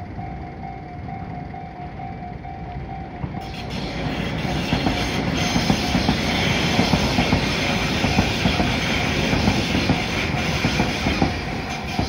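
Japanese level-crossing warning bell ringing a steady repeated ding. From about four seconds in, a Tobu 100-series Spacia limited express runs past over the crossing with loud rumbling and wheel clatter that drowns out the bell. The bell is heard again near the end as the train clears.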